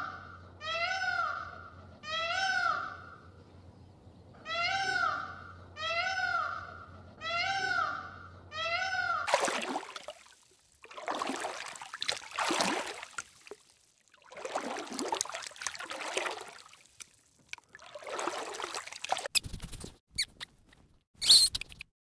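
A peafowl calling over and over, short calls about one a second, each rising then falling in pitch, for roughly the first nine seconds. Then water splashing and sloshing in irregular bouts as a turtle and fish stir a pond's surface, with a short sharp high sound near the end.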